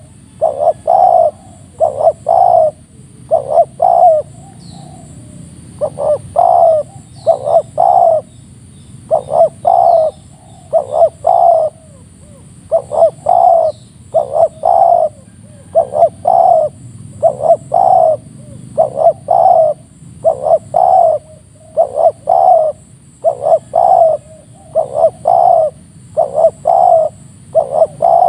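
Spotted dove cooing close up: a phrase of three or four quick coos, repeated about every second and a half, with a short break about five seconds in. Faint high chirps of small birds behind it.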